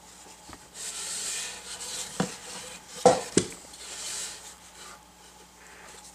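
Rubbing and scraping as a painting panel is slid and turned on a rubber grip mat, with three sharp knocks of the board as it is lifted and set down, the loudest about three seconds in.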